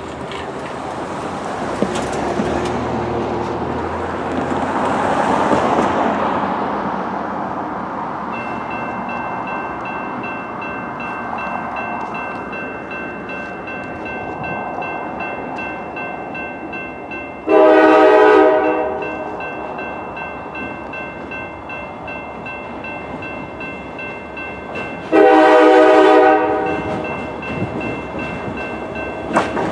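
A pickup truck passes over the crossing at first. Then a railroad crossing's warning bell starts ringing steadily and keeps on, and a CSX GP40-2 locomotive's Nathan K5LA air horn sounds two long blasts about eight seconds apart, the start of the grade-crossing signal, with another blast beginning at the very end.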